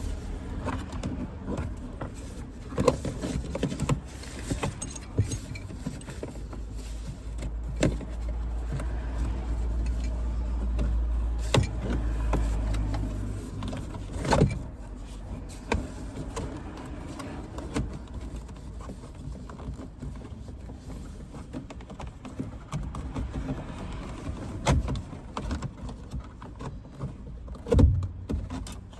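Scattered knocks and metallic clinks of a seatbelt's hardware and hand tools being handled inside a car, over a low rumble that swells for a few seconds in the middle.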